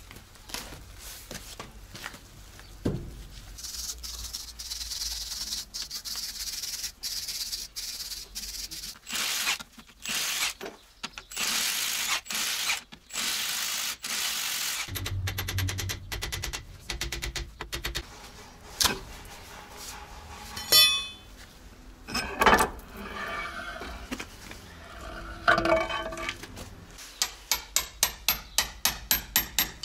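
A cordless impact wrench runs in a string of short bursts, undoing the hub nuts on a KamAZ truck's wheel hub. Loose steel parts then clink against each other, and near the end a hand ratchet clicks quickly and evenly, about four clicks a second.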